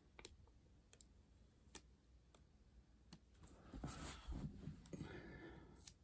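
Faint scattered clicks from a vinyl sticker being peeled off its backing paper and handled, with a brief rustle of the sticker and paper about halfway through.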